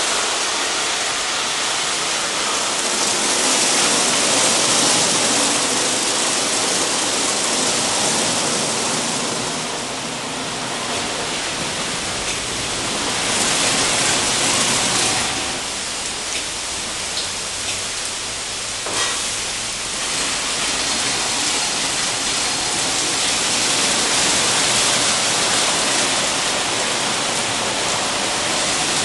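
WashTec SoftWash rollover car wash at work: water spray and the spinning top and side brushes make a steady rushing hiss like heavy rain, swelling and easing a little as the brushes travel.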